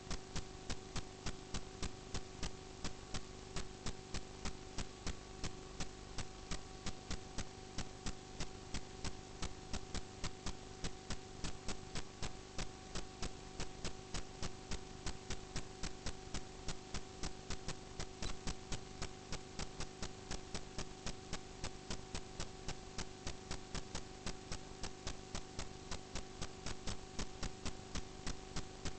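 Steady electrical hum with a sharp, even tick about three to four times a second.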